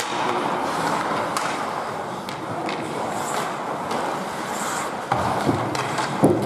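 Ice hockey play on an indoor rink: skate blades scraping on the ice, with scattered clicks of sticks on the puck and a sharp knock about six seconds in.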